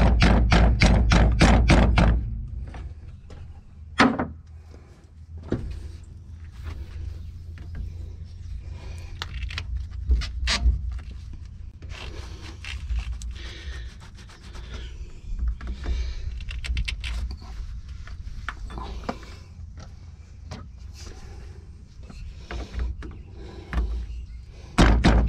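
Hand-tool work on a truck air dryer's air-line fittings: a fast, even clicking for the first two seconds, then scattered knocks, scrapes and rubbing. Near the end a sudden loud rush of compressed air starts, escaping because the air tanks were not fully bled down.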